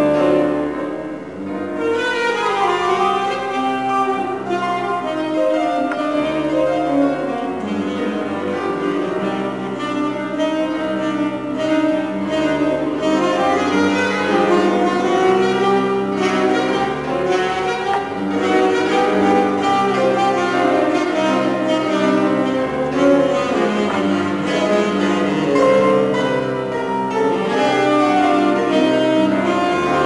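Music played on piano and bowed strings, with long held string notes.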